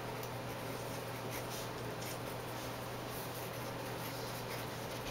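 Short, irregular scratches of writing, marker or pen, over a steady low room hum.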